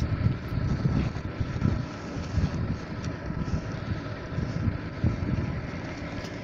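Wind buffeting the phone's microphone: an uneven low rumble that surges and eases every second or so.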